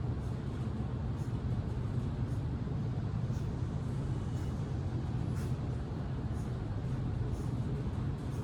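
Steady low droning rumble, with a faint short tick about once a second.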